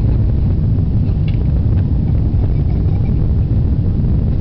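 Steady low rumble of cabin noise inside an Airbus A380 airliner, the engines and airflow heard through the fuselage at an even level.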